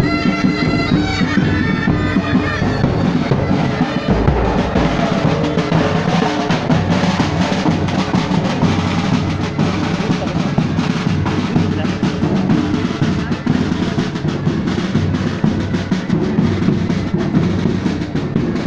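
Marching pipe band: the bagpipe melody fades after about three seconds, leaving the snare and bass drums playing a steady march beat with drum rolls.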